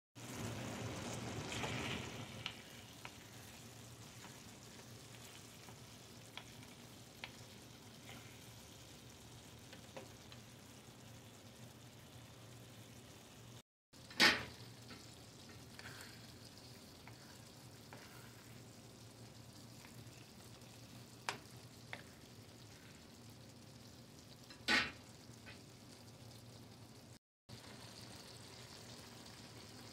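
Chicken, pasta and vegetables sizzling and simmering in sauce in a frying pan, a steady soft hiss with small scattered crackles. A couple of sharper knocks stand out, one about halfway and one near the end.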